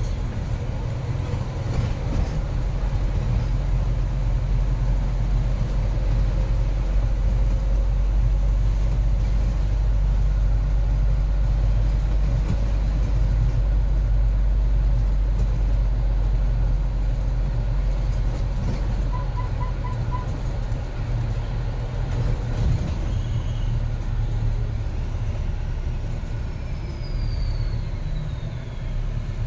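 Steady low rumble of a moving vehicle, with four quick beeps about two-thirds of the way through and a faint falling squeal near the end.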